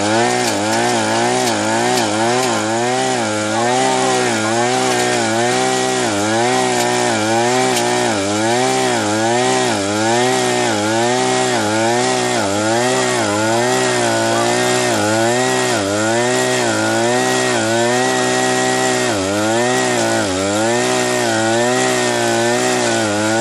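Small engine of a rotary tiller (soil cultivator) running under load, its pitch dipping and recovering over and over in a steady wobble as the tines work the soil.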